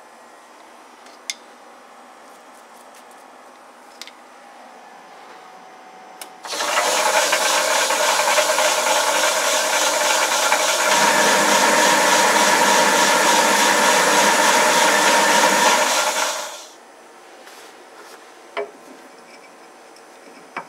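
Metal lathe switched on and running under power for about ten seconds during an internal thread-cutting pass, a loud steady gear-and-motor whine that grows heavier about halfway through, then winds down quickly as it is switched off. A few light metallic clicks come before and after it.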